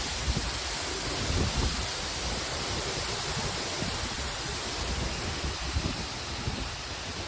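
Strong storm wind: a steady rushing hiss with low buffeting of wind on the microphone in a few gusts, strongest about a second and a half in and again near six seconds.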